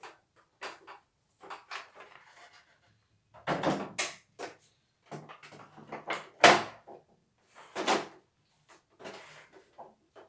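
Clatter and clunks of a portable embroidery machine being handled on a wooden workbench, its plastic embroidery unit knocked and slid into place. The knocks come at irregular intervals, the loudest a little past the middle.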